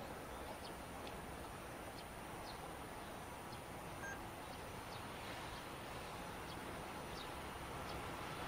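Distant rumble of an approaching freight train behind an EF210 electric locomotive, faint and slowly growing louder toward the end, with scattered short high chirps over it.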